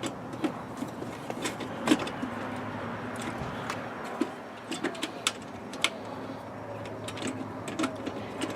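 Plastic tail light housing on a Jeep Wrangler JK clicking and knocking against the body as it is slid into place and its screw holes are lined up. There are a dozen or so sharp clicks, scattered irregularly, over a steady low hum.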